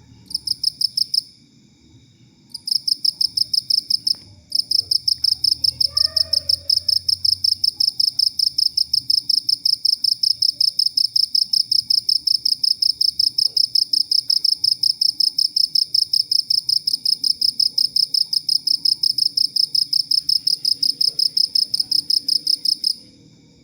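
Cricket chirping in a high-pitched, evenly pulsed trill of about four to five chirps a second. Two short bouts at the start give way to an unbroken run that stops suddenly near the end.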